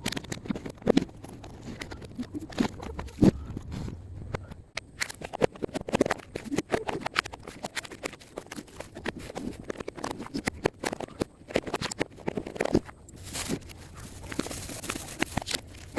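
Irregular clicks, knocks and rustling of things being handled, with a steadier rustle starting near the end.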